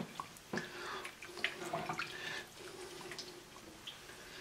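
A whisk stirring a creamy sauce in a skillet: wet swishing with quick, irregular clicks of the whisk against the pan. The sour cream is being whisked into the sauce to work out the lumps.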